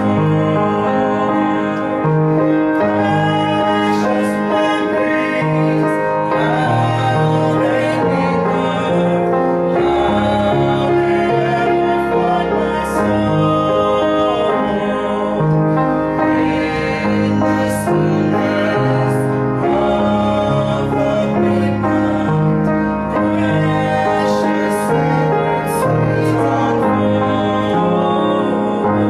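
A gospel song with instrumental accompaniment and a steady bass line, a woman singing the melody.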